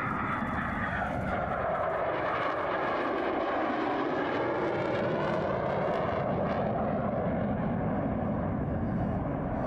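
Continuous jet noise from an F-22 Raptor's twin Pratt & Whitney F119 turbofans as the fighter banks through its display, with slow sweeping shifts in tone. The high hiss thins out after about six or seven seconds as the jet pulls away.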